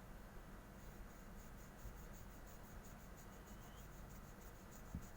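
Cotton ball wet with lighter fluid being rubbed quickly back and forth over the LCD panel to lift old adhesive: a faint scratchy wiping, about five strokes a second, with a light knock near the end.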